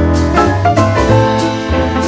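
Background music: an upbeat piano-led track with bass and drums.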